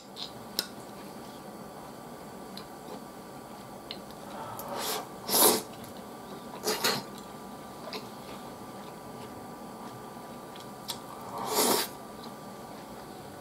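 Eating with a metal spoon from a ceramic plate of tenshinhan: light clicks of spoon on plate, and three short, loud breathy noises from the eater, about five, seven and eleven and a half seconds in, the first the loudest.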